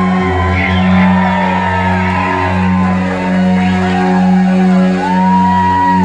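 A new wave band playing live on electric guitar and synthesizer over steady held bass notes, with high notes sliding up and down above them.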